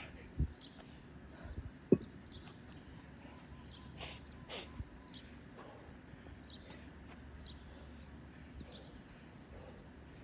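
A man breathing hard between exercise sets, with two short forceful puffs of breath about four seconds in. A sharp low thump about two seconds in is the loudest sound, and faint short high chirps are heard throughout.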